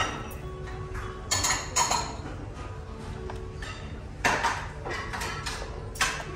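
Tableware clatter during a meal: a few short, sharp bursts of dishes and utensils knocking, over background music.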